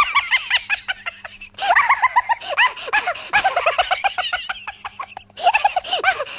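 High-pitched giggling laughter in quick rippling bursts, with two short breaks.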